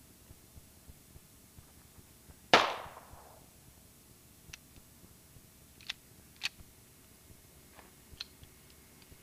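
A single handgun shot about two and a half seconds in, with a short ringing tail that dies away. Several faint clicks follow later.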